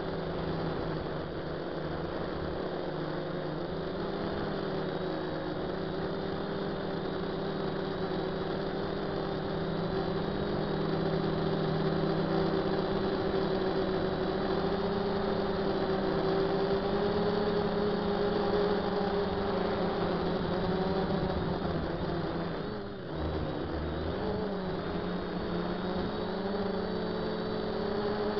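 DJI F450 quadcopter's brushless motors and propellers buzzing steadily at a held pitch, heard from on board. Near the end the pitch and level dip briefly, then come back up.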